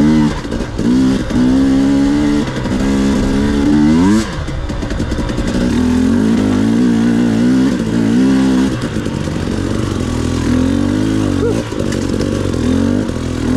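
2019 KTM 250 XC-W TPI two-stroke dirt bike engine under a rider's throttle, its pitch holding, dropping and climbing again as it is ridden, with a sharp rising rev about four seconds in.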